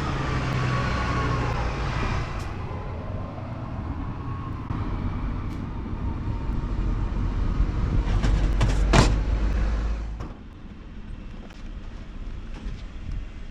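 Road traffic: a motor vehicle running close by, a steady low rumble that falls away about ten seconds in, with a sharp clatter about nine seconds in.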